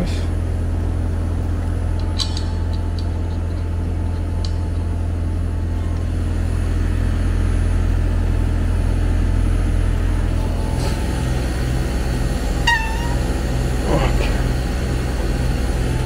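Trane XV variable-speed outdoor unit running close by: a steady low hum from the compressor and condenser fan, with a few light clicks. The system is running overcharged while refrigerant is pulled out of it.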